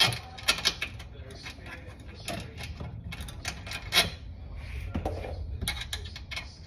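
Irregular clicks, taps and rubbing of parts handled by hand as a front splitter is pushed into place against a car's underside, with sharper knocks right at the start and about four seconds in.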